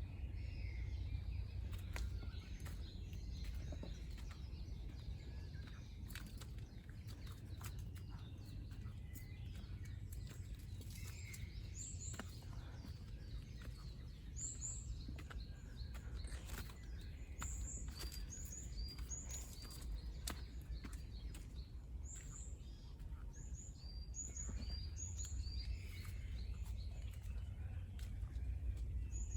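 Forest ambience: a small songbird gives short, high, falling chirps over and over from about halfway in, over a steady low wind rumble and scattered light clicks and crackles.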